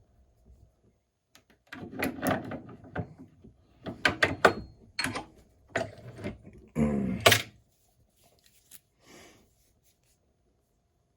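A run of metal clicks and clunks from an antique Corbin padlock and its freshly cut key being worked and handled, the loudest knock about seven seconds in.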